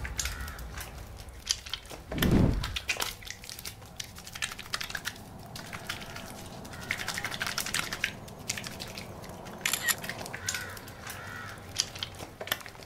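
Wet, soapy hands being rubbed together under water poured from a teapot: a run of quick squelching clicks. A dull thump comes about two seconds in, and a few bird calls sound near the end.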